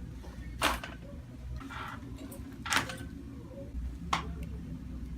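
Joints popping during chiropractic adjustments: three short, sharp cracks a second or two apart.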